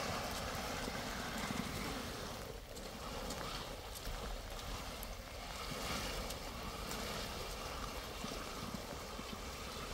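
Steady wind and rain noise, with a plastic tarp rustling and scraping as it is dragged over the road and gravel.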